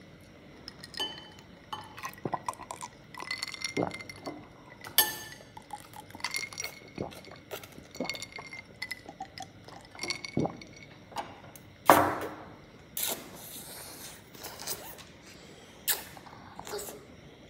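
Scattered light clinks of chopsticks and a spoon against a ceramic noodle bowl, mixed with ice clinking in a glass of water, some clinks ringing briefly. A louder knock comes about twelve seconds in.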